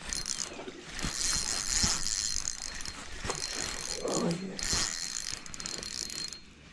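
Spinning reel being cranked to bring in a hooked bass, its gears whirring in four stretches with short pauses between them. A brief lower sound comes about four seconds in.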